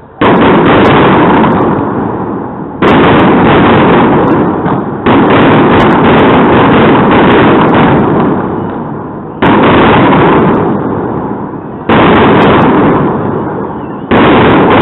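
Fireworks display: six loud bangs of bursting aerial shells, a couple of seconds apart, each followed by a long fading rumble with crackling.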